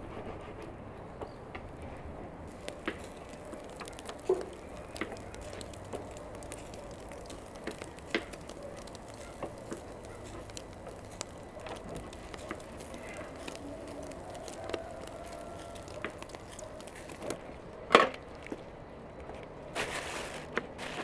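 Metal skewers turned over a charcoal grill, with scattered light clicks and crackles over a steady low hiss. Near the end come a loud sharp knock and a knife cutting on a wooden board.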